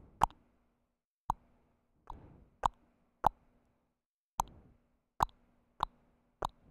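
Sharp single computer mouse clicks, about nine at uneven intervals of roughly half a second to a second.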